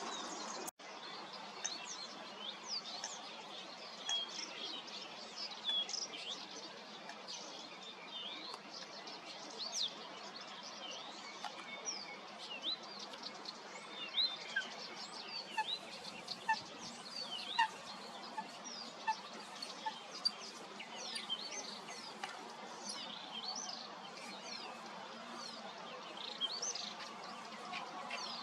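Small birds chirping and singing in a busy chorus of many short, high calls, over a faint steady background noise.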